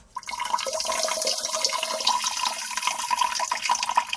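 A person peeing, the urine stream splashing steadily; it starts suddenly.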